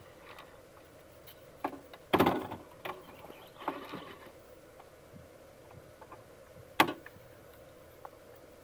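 Traxxas TRX-4 Defender RC rock crawler working over rocks: short bursts of electric whirring from its drive motor and 9imod 60 kg steering servo, mixed with knocks of tires and chassis on stone. The sharpest knock comes about seven seconds in.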